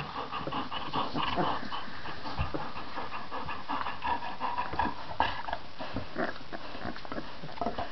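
A litter of 18-day-old Irish red setter puppies making a steady string of small, high squeaks and whines.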